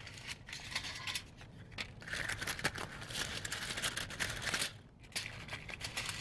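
Foil cupcake liners crinkling and rustling as they are pulled from the stack and pressed into a muffin pan, with a short pause about five seconds in.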